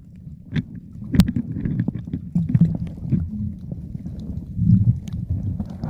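Muffled underwater sound picked up by a camera held below the surface: a low, uneven sloshing rumble with scattered sharp clicks and ticks.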